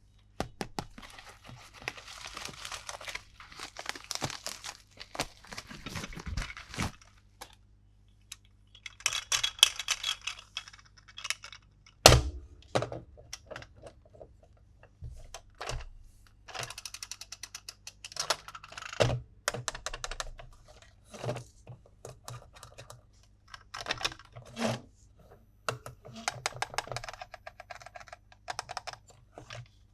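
Toy packaging being handled and opened: plastic and cardboard crinkling and tearing, with scattered clicks of plastic parts. Two sharper knocks come, one about a third of the way in and one about two-thirds in.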